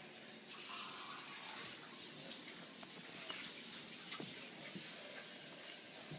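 Cat rolling and pawing in a heap of snow on a blanket: soft rustling and crunching of snow and fabric, with a few faint ticks, over a steady hiss.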